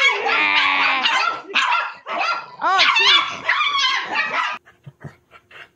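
Chihuahua barking rapidly and aggressively in a string of high-pitched barks, guarding the person beside it against a reaching hand. The barking stops about four and a half seconds in, leaving a few faint clicks.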